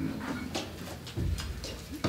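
Footsteps and light taps on a hard floor, with a dull thump a little after a second in.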